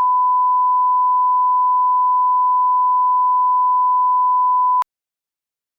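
A 1 kHz line-up test tone: one steady, pure beep that cuts off sharply just before five seconds in.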